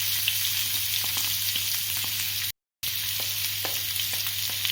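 Tadka sizzling in hot ghee in a pan as chopped onions fry with garlic and whole spices, with scattered light ticks of stirring. The sound cuts out for a moment about two and a half seconds in.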